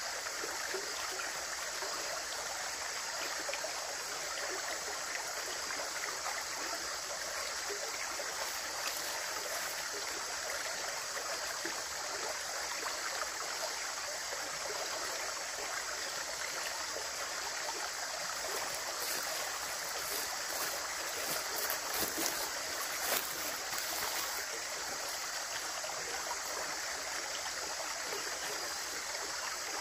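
Running water flowing steadily, with a few brief clicks about two-thirds of the way through.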